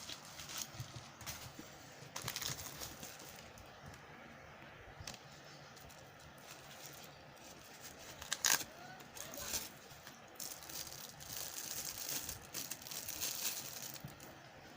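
Plastic packaging of fishing lures being handled, rustling and crinkling, with scattered clicks and small rattles; a sharper crackle about eight and a half seconds in.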